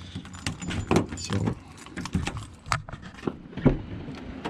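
Scattered, irregular clicks and knocks, about half a dozen, with soft rustling between them.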